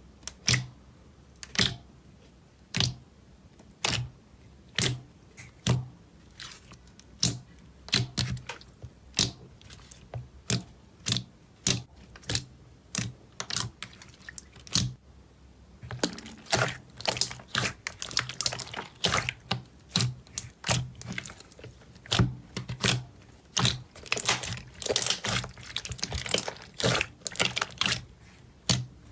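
Slime being squeezed and worked by hand, trapped air popping in sharp, wet clicks about once a second, turning into a dense crackle of pops from about halfway through.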